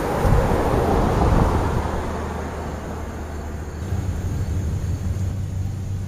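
A vehicle passing by, a rushing noise that swells in the first second and fades over the next two, over a steady low hum.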